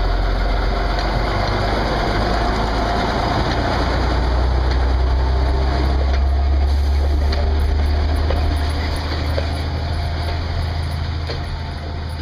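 Diesel locomotive engine running steadily under load as the tourist train pulls away, with a few sharp clicks from the carriage wheels on the track. The sound eases off over the last few seconds as the train moves away.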